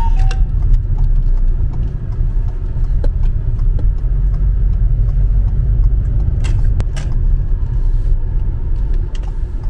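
Inside a car driving slowly: steady low rumble of road and engine noise in the cabin, with two sharp clicks about six and a half and seven seconds in.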